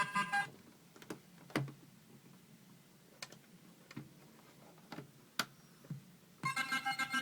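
Circuit-bent electronic sound-effects toy: its bleeping, buzzy tones cut off just after the start, then about seven scattered clicks of its buttons and switches, and the bleeping tones start again near the end.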